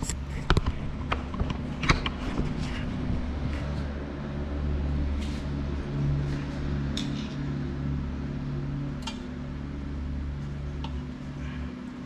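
Scattered light clicks and taps of a screwdriver and metal wire terminals being handled in the base of an opened rice cooker as wires are reconnected, the sharpest in the first two seconds. A steady low hum runs underneath.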